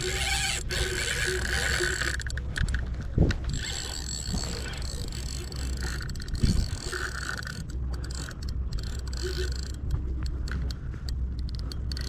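Spinning reel being cranked steadily against a hooked fish, its gears whirring and clicking, over a steady low rumble. Two short knocks come about three seconds in and again about six and a half seconds in.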